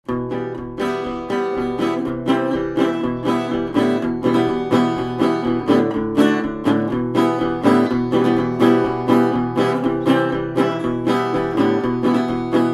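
Resonator guitar strummed in a steady rhythm, about two to three strums a second, playing the instrumental intro of a song.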